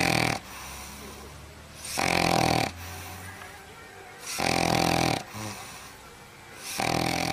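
Dog snoring in its sleep, four loud snores about two and a half seconds apart, with quieter breathing between them.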